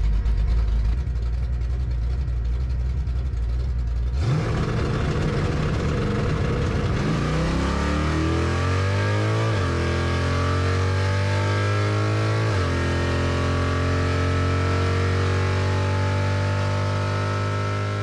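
A 385 cubic-inch small-block Chevrolet V8 in a Fox-body Mustang drag car, heard from inside the cabin. It holds a steady low note, then about four seconds in it launches and revs up hard. The TH400 automatic upshifts twice, the pitch dropping and climbing again each time, about halfway through and a few seconds later, and the engine then pulls on in top gear.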